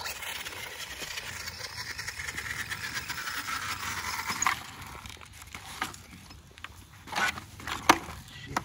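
Battery-powered RC truck driving over dirt: a motor whine with a gritty hiss that rises a little and stops about four and a half seconds in. Scattered knocks and clicks follow.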